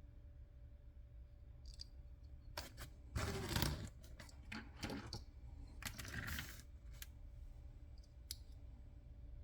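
Small toy vehicles being handled: scattered light clicks and taps of die-cast and plastic toy cars being picked up and set down. A louder scraping clatter comes a few seconds in, and another shortly after the middle.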